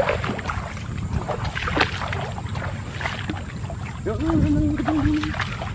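Feet wading through shallow marsh water, scattered splashes and sloshing, over a low wind rumble on the microphone. About four seconds in, a voice holds one long note for about a second.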